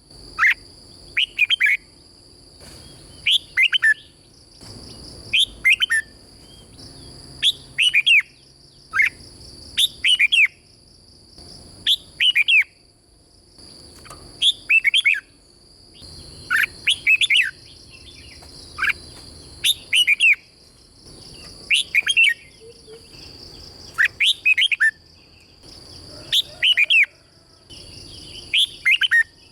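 Red-whiskered bulbul singing: short bright phrases of quick falling notes, repeated every second or two.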